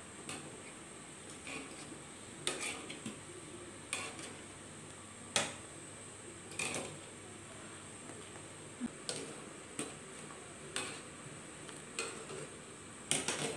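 Wire-mesh spider strainer knocking and scraping against a wok as cooking chicken meatballs are stirred in boiling water: irregular clinks about once a second, some in quick pairs, over a steady low hiss of the boil.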